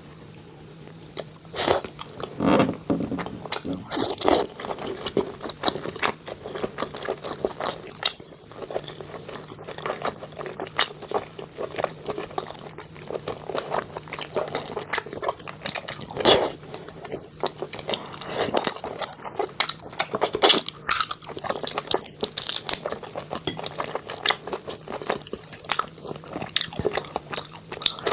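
A person biting and chewing crunchy food, with irregular crisp crunches and mouth sounds throughout.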